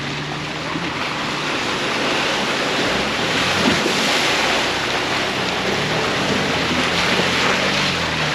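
Ford Bronco driving on an off-road trail: a loud, steady rushing noise from the tyres and the air, with the engine humming low underneath. The rush swells about three seconds in.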